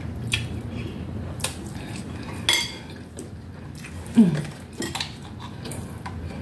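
Chopsticks clicking and scraping against plastic takeout bowls in a few separate knocks. About four seconds in comes the loudest sound, a short low sound that falls in pitch.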